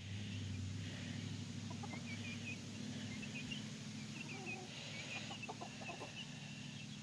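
Young backyard chickens clucking softly and peeping in short high chirps as they feed, with a steady low hum underneath.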